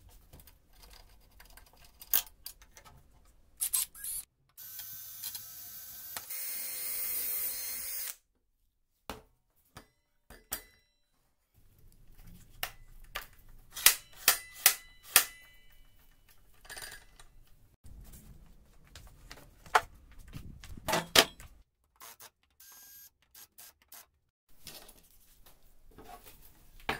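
Handling of a Greenworks cordless circular saw on a workbench: scattered clicks and knocks as its base and levers are set and adjusted, with a power tool running steadily for about three seconds near the start.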